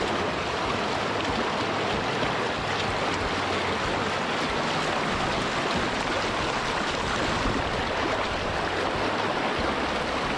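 River water rushing over a small rocky rapid: a steady, even white-water rush.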